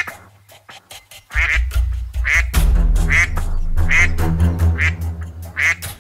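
Duck quacking in a string of short calls, a little more than one a second, over background music that comes in about a second in.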